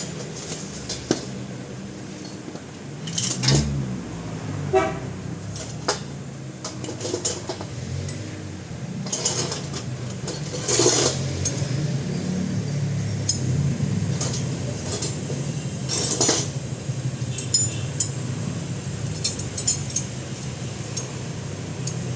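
Metal hand tools clinking and knocking against steel suspension parts, with several louder ringing strikes, while the front wheel bearing and ball joint are being removed.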